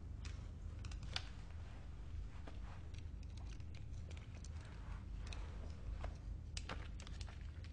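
Tense quiet room ambience: a steady low hum with scattered small clicks and rustles, the sharpest click about a second in and a few more near the end.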